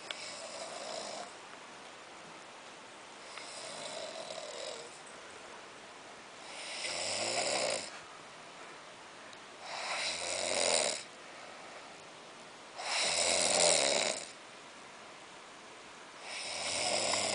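Snoring in steady sleep: six snores, one about every three seconds, each lasting about a second, the later ones louder than the first two.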